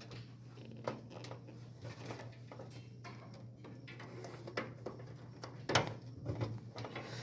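Small clicks and knocks of cable connectors being pushed back onto a desktop computer's combo drive, with a louder knock about six seconds in, over a faint steady low hum.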